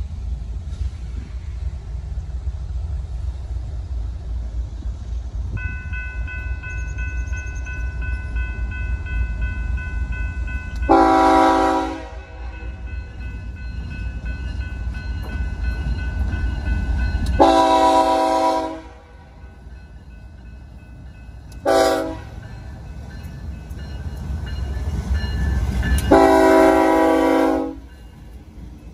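BNSF freight train's diesel locomotive air horn sounding the grade-crossing signal of long, long, short, long, over the low rumble of the approaching locomotives. The last long blast is the loudest, as the engines come alongside.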